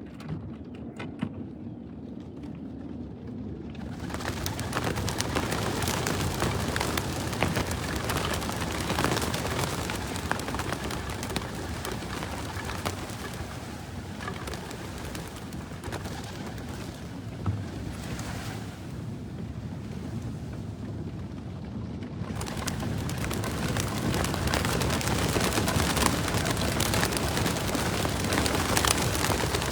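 Wings of a flock of racing pigeons flapping as they leave a release trailer: a dense fluttering clatter that sets in about four seconds in, thins out for a few seconds past the middle, then swells again as more birds go.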